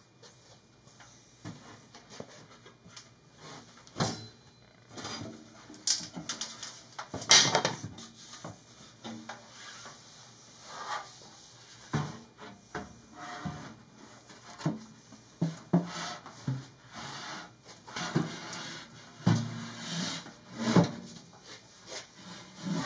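Sheet-metal housing of a furnace squirrel-cage blower bumping and scraping against a plywood box as it is squeezed in: irregular knocks, thuds and rubbing, the loudest knock about seven seconds in.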